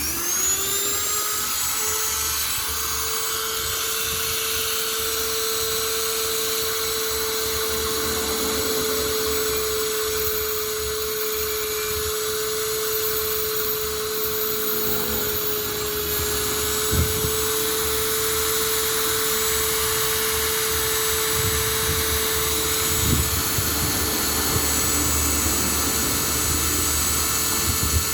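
A small high-speed electric motor switching on and spinning up over about two seconds, then running with a steady whine. There are a couple of light knocks partway through.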